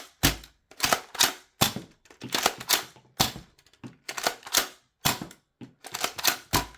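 Nerf Mega Cyclone Shock blaster being primed and fired: a run of about a dozen sharp plastic clacks and spring-powered shots, some in quick pairs and clusters, as its three darts are cocked and launched.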